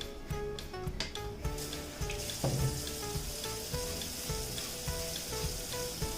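Chicken sizzling as it fries in a pot. The sizzle comes in about two seconds in and continues over light background music.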